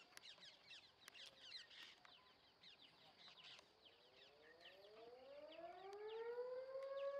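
Rapid short chirps of birds or insects, then from about four seconds in a siren rising smoothly in pitch over a few seconds and levelling off into a steady wail.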